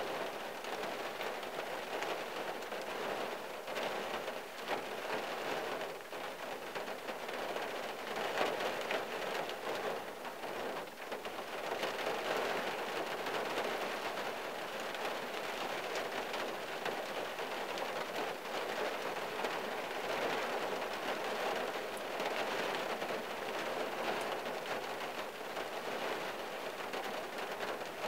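Rain falling steadily on the roof and windshield of a 1974 Valiant, heard from inside the cabin: an even hiss with countless small drop hits ticking on the glass and metal.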